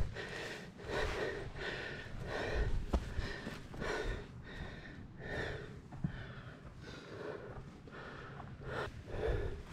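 A hiker breathing hard, in and out in a steady rhythm about once a second, winded from climbing a steep trail.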